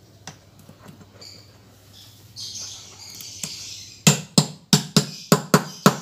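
A hammer tapping a new bearing into the hub of a front-loading washing machine's plastic tub: about seven quick, sharp taps, roughly three a second, starting about four seconds in, after some quiet handling clicks.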